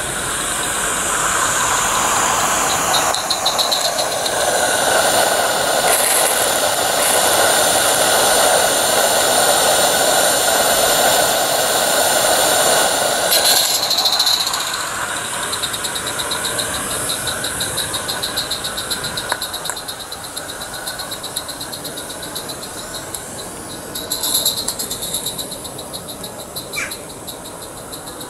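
Roundhouse 'Dylan' live steam model locomotive running light engine: a fast rhythmic beat and a steady high-pitched squeal. They grow louder as it approaches, are loudest as it passes close about halfway through, then drop and fade as it runs away.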